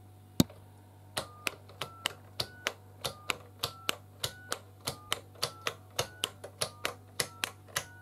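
Push buttons on a 1981 GPO 782 touch-tone telephone pressed one after another, each press a click followed by a short multi-frequency (DTMF) dialling tone. About a dozen presses come at an even pace of under two a second, with the tone's pitch stepping up across each row of keys and repeating, as the keys are pressed in order. The tones have the rather raw sound of an early touch-tone phone.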